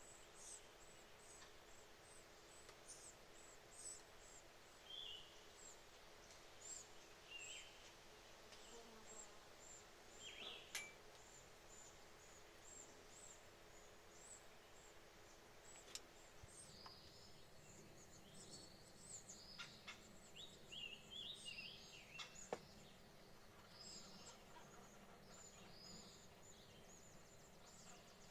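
Faint, high-pitched chirping of red-bellied woodpecker nestlings begging, repeating all through, with a busier run of calls a little past the middle and a few sharp clicks.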